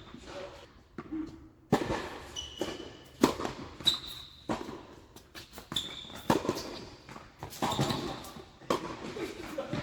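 Tennis rally: sharp racket-on-ball hits and ball bounces every second or so, with short high squeaks in between.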